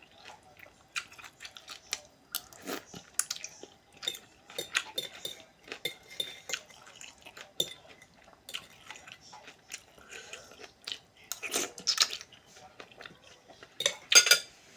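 Close-up eating sounds: chewing and crunching in short, irregular bursts, with cutlery clinking against a bowl.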